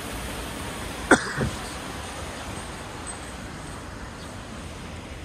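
Steady ambient street noise with a single short, sharp sound about a second in, followed by a fainter, lower one.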